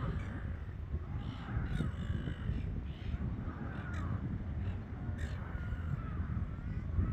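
Gulls calling, a string of short harsh arching calls repeating every second or so, over a steady low rumble.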